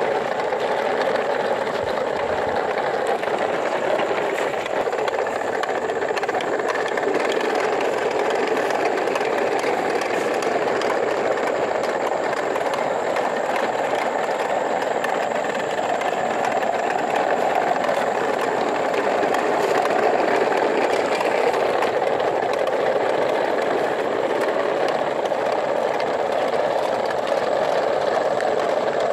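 A convoy of plastic toy dump trucks rolling over gravel and dirt, their plastic wheels and bodies making a steady rattling clatter that never stops.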